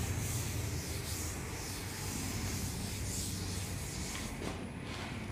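A hand rubbing across an interactive whiteboard screen to erase it: a soft swishing hiss that swells and fades in strokes and stops about four and a half seconds in, over a steady low hum.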